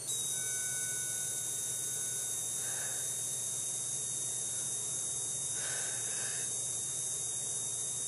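Steady high-pitched electronic whine from a cordless drill's trigger speed-control switch driving a load off a 12-volt power supply, over a steady hiss. The whine comes on right at the start and holds one pitch.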